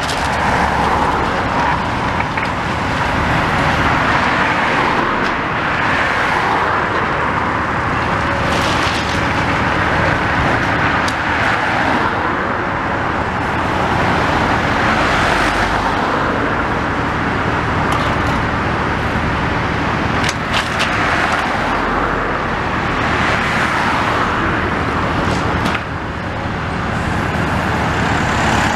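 Hyundai tracked excavator's diesel engine running steadily under load as its demolition grab pulls at the brickwork, with a few scattered knocks and clatters of falling rubble.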